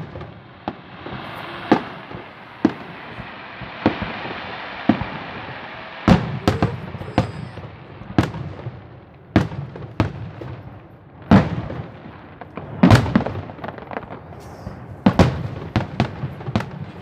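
Fireworks going off: a string of sharp, irregularly spaced bangs, some a fraction of a second apart, with a crackling hiss through the first few seconds.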